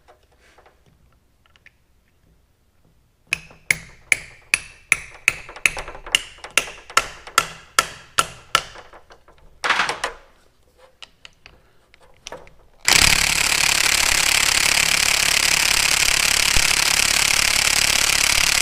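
Impact wrench hammering steadily for about six seconds near the end on the drive motor's bolts, which are too tight to break loose. Before it, a run of sharp metallic knocks, about three a second, lasting about five seconds.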